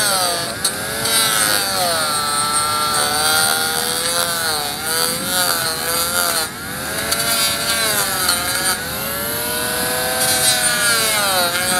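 Cordless Bosch mini grinder fitted with a tungsten carbide chip cutting disc, grinding a section out of a horse's hoof wall at the toe. The motor whine keeps sagging and recovering in pitch as the disc bites into the horn, over a gritty grinding hiss.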